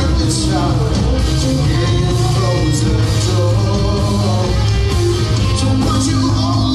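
Live rock band playing loud and without a break: electric guitars, bass and drums, heard as an audience recording in a theatre hall.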